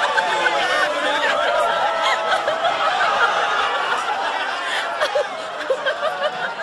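A crowd of people laughing and snickering, many voices overlapping.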